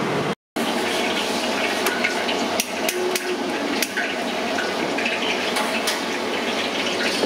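Commercial kitchen gas burner running with a steady, rushing hiss, with a few sharp metallic clinks of utensils on top. It starts after a brief silent gap just after the start.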